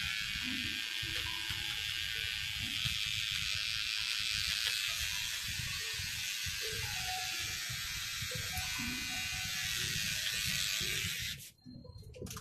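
Corded electric hair clipper running with a steady buzz while it trims a man's hair, stopping abruptly near the end.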